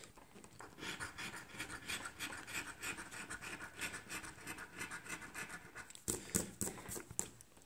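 A coin scratching the coating off a paper lottery scratch-off ticket in quick repeated strokes, faint and rasping, with a few louder separate strokes near the end.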